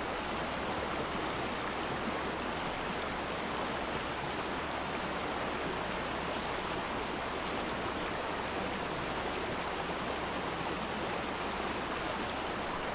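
Rocky stream running over stones in small rapids: a steady, unbroken rush of water.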